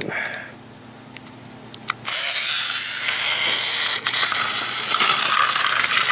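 Small battery-powered toy track car's electric motor and plastic gears whirring as it drives along a flexible plastic toy track. The loud, steady whir starts abruptly about two seconds in.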